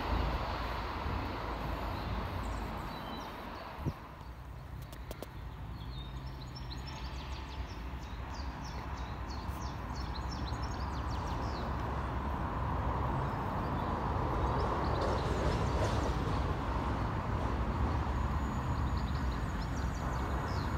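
Low rumble of railway traffic that dips after a few seconds, then a diesel locomotive's engine running as it approaches and grows slowly louder. Small birds chirp over it at times.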